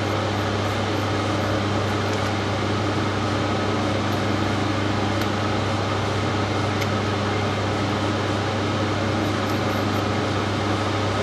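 Metal lathe's electric motor running steadily, with a strong even low hum.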